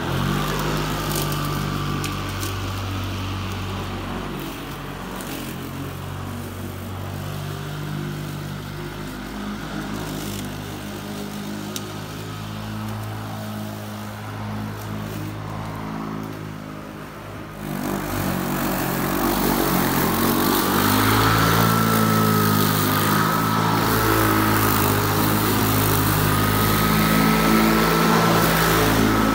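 Harbor Freight Atlas 80V battery-powered lawn mower running as it cuts grass, a steady hum of the spinning blade and electric motor. It gets louder about two-thirds of the way through, with a thin high whine over it.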